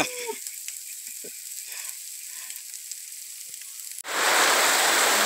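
Heavy rain falling, a loud steady downpour that comes in abruptly about four seconds in. Before it, the end of a man's drawn-out mock dog howl, then only a faint steady high hiss.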